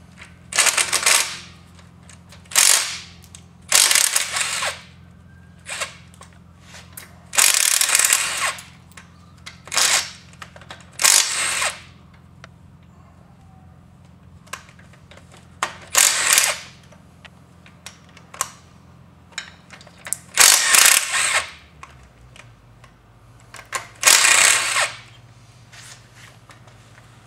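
Cordless impact driver with a socket spinning out the bolts on a Dana 30 front locking hub, running in short bursts of half a second to a second, about a dozen times. A steady low hum runs beneath it and changes pitch about 22 seconds in.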